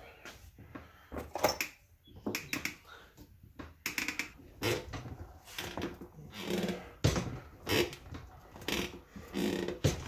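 A new motorcycle rear tire being forced by hand over the rim on a manual tire-changer stand, its bead lubricated: irregular knocks and clunks with short rubbery squeaks.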